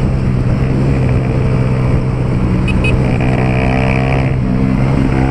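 Honda CG Titan 150's single-cylinder four-stroke engine running through a loud Pro Tork aftermarket exhaust while riding, holding a steady engine note.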